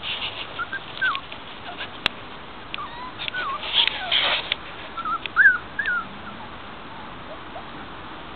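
Five-week-old Schapendoes puppies whimpering: a run of about ten short, high, wavering squeaks mixed with scratchy clicks, dying away after about six seconds.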